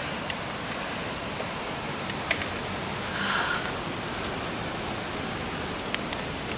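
Steady rushing of river rapids and waterfall, with a few faint clicks and a brief swell about halfway through.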